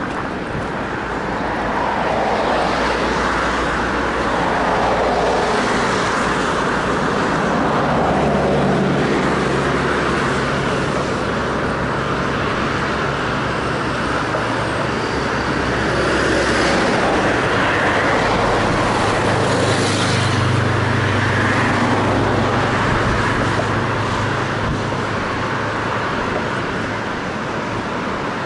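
Road traffic on the bridge roadway beside the footpath: cars passing in a series of swells, with a low, steady engine hum through the middle stretch.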